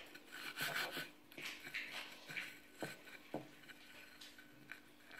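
Faint gritty rustling of sesame seeds under fingers as dough sticks are rolled through them on a plate, with a couple of small clicks and a faint steady hum.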